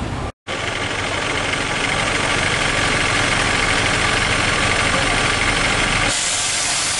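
Engine of a double-decker bus idling steadily, heard close to its rear engine bay. The sound drops out for a moment near the start and turns thinner and hissier near the end.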